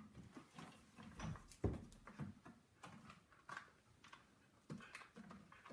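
Faint scattered taps, knocks and paper rustles: a dog rummaging in a small mailbox and pulling out a letter.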